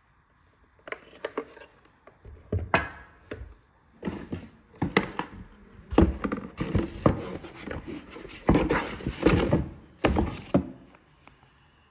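Cardboard box being handled around a sandwich grill: flaps rustling and scraping, with irregular knocks and thumps as the appliance and its foam packing are moved about.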